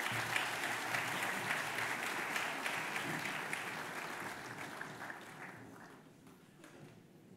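Audience applauding, a dense clapping that thins out and dies away over the last few seconds.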